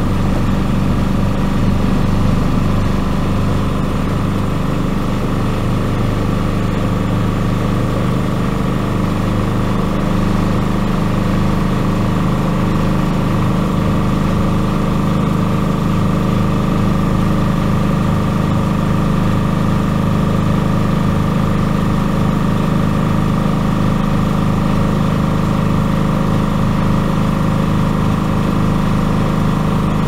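Miele Supertronic W5000 front-loading washing machine spinning its drum at 1600 rpm: a steady motor hum with a constant higher whine, holding at top spin speed.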